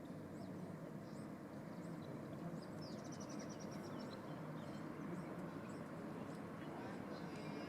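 Steady low background rumble with faint bird chirps, including a quick trill of repeated high chirps about three seconds in.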